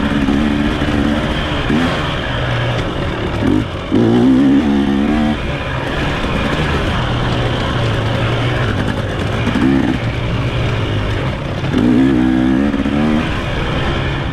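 Off-road race bike's engine running hard on a trail, revving up and down with the throttle, with louder surges about four seconds in and again near twelve seconds.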